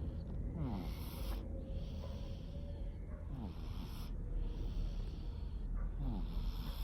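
Cat snoring: raspy, hissy breaths in and out, a short breath then a longer one, repeating about every two and a half to three seconds.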